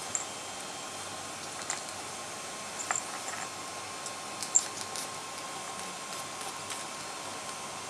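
Ferrets shifting and pawing at each other in a plastic-trayed wire cage: faint scattered clicks and scratches over a steady low hiss, the sharpest click about four and a half seconds in.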